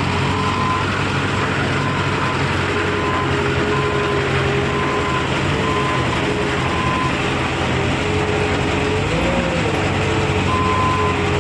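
JCB 155 skid steer loader's diesel engine running steadily, its pitch briefly rising about nine seconds in. A reversing alarm beeps about once a second, pausing for a few seconds late on and starting again near the end.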